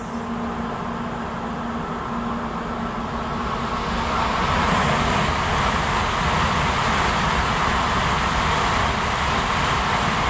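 N700-series Shinkansen bullet train running through the station at speed: a rushing, rumbling noise that swells about four seconds in and stays loud. A steady low hum lies under the start.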